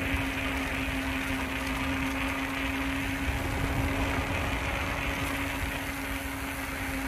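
A bicycle ridden at speed: continuous wind and rolling noise, with one steady low hum at an unchanging pitch throughout.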